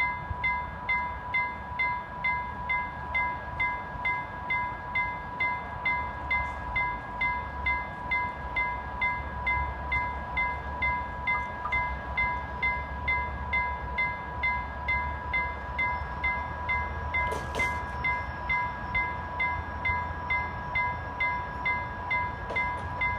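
Railway level crossing warning bell ringing, an even run of chime strikes about two a second over a steady tone, sounding while the crossing is active for an approaching train. A single sharp click comes about seventeen seconds in.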